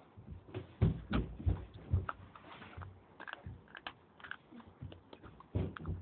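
Close-up crunching and chewing of a dry lump of edible clay, with irregular sharp crunches. A heavy run of bites comes about a second in, lighter crackles follow, and another heavy crunch comes near the end.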